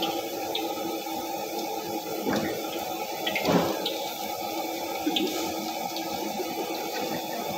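Commercial gas wok burner running at full flame under a wok, a steady rushing noise, with a few short knocks, the loudest about midway.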